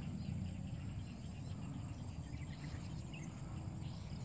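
Outdoor ambience: a steady high-pitched insect drone over a continuous low rumble.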